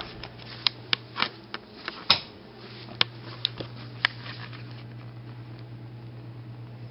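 Steady low hum of a running freezer, with scattered sharp clicks and knocks in the first four seconds from footsteps and handling of the camera.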